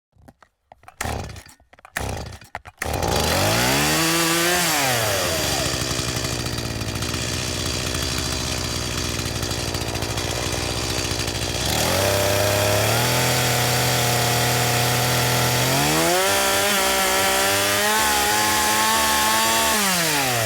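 Stihl two-stroke chainsaw pull-started: a few short yanks of the starter cord, then the engine catches about three seconds in. It revs up briefly and drops back to a steady run, and later revs high and is held there while it cuts wood, then drops back near the end.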